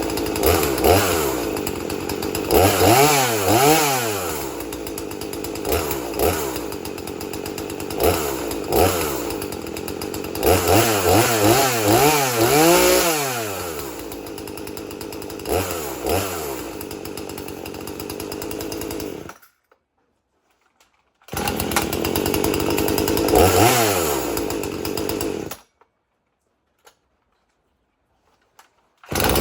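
Husqvarna 240 two-stroke chainsaw running, idling between repeated throttle blips that send the engine note climbing and falling in pitch, the longest revs a few seconds in and again around the middle. The sound cuts off abruptly twice near the end, for about two and then about three seconds.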